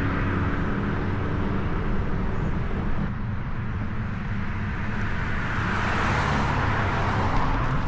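Steady outdoor road-traffic rumble, with a vehicle passing that swells and fades about six seconds in.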